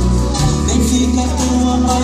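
Live Brazilian popular music (MPB) band playing: a woman singing into a microphone over acoustic guitar, cello, low bass notes and light percussion.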